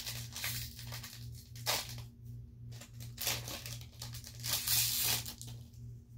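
Foil Pokémon booster pack wrapper crinkling and tearing open, with cards rustling as they are handled, in a run of irregular rustles. A longer, louder tearing stretch comes just before the end.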